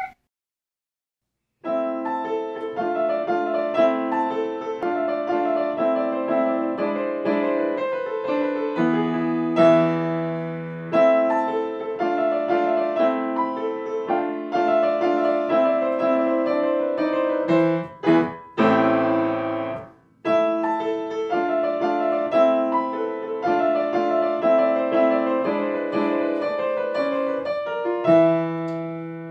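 Solo piano music, a steady run of notes beginning about two seconds in, with a brief pause about two-thirds of the way through.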